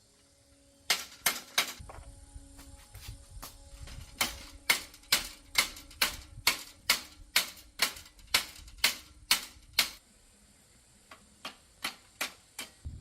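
Repeated sharp taps on metal, a little over two a second, with a faint ring under them. They stop about ten seconds in, and a few lighter taps follow near the end.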